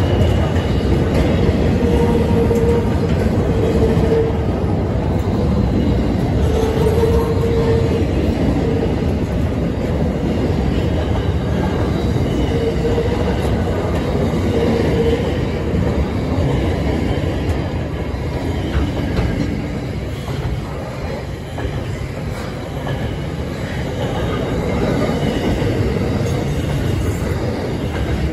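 Freight train wagons rolling past at close range: a steady rumble and clatter of steel wheels on rail, with a squeal from the wheels coming and going several times in the first half.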